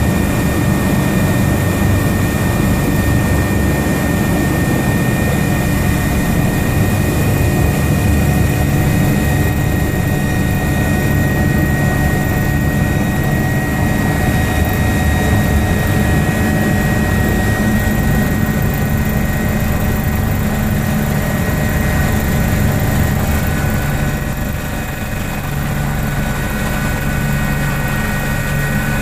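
Medical helicopter's turbine engine and rotor heard from inside the cabin: a loud steady drone with a high turbine whine, as the helicopter lifts off. The sound dips briefly about three-quarters through, with a slight shift in the low engine note.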